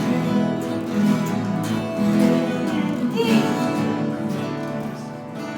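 Several acoustic guitars strumming chords together at a slow, steady beat, about one strum a second.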